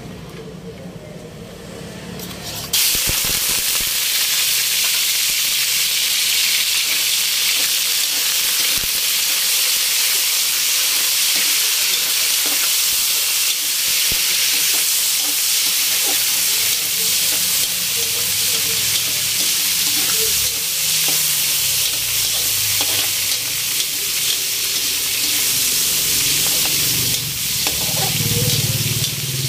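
Diced pork going into hot cooking oil in a wok, the sizzle starting suddenly about three seconds in and carrying on as a steady frying hiss while the pork browns. A spatula stirs the pieces near the end.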